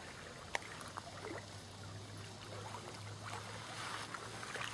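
Quiet lakeside ambience: faint water lapping with a low steady hum and a few light clicks.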